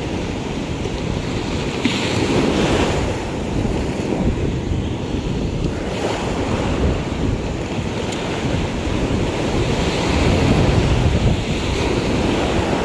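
Sea surf breaking and washing up the beach, with wind buffeting the microphone; the wash surges louder twice.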